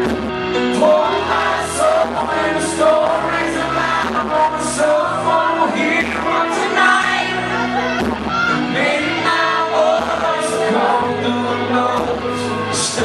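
Live band music with singing: a voice over steady bass notes and drums with regular cymbal hits.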